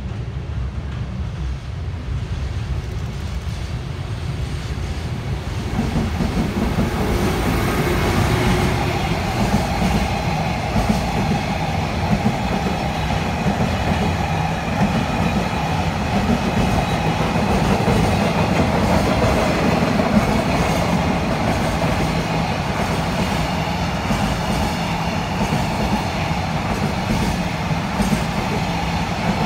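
Freight train hauled by an EF510 electric locomotive rolling past with a long rake of container wagons: a low rumble that grows louder about six seconds in as the train comes alongside, then holds steady, with some clicking of the wagon wheels on the rails.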